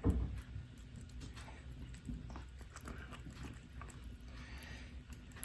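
A young kitten eating wet cat food from a stainless-steel dish, with a run of small wet chewing and lapping clicks. There is one louder knock right at the start.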